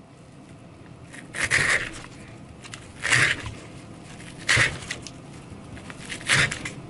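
A pocket knife with an S90V steel blade slicing through test material in four separate cutting strokes, each a short scraping crunch about a second and a half apart.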